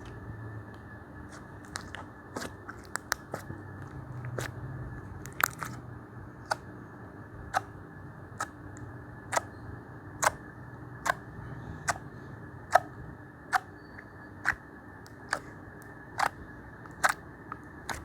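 Homemade slime being pressed and played with by hand, making sharp popping clicks. At first the pops come irregularly; from about five seconds in they settle into an even rhythm of roughly one pop a second.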